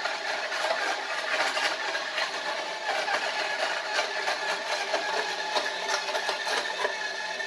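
Electric crushed-ice machine running steadily, its motor going under a constant fine crackling of ice being crushed.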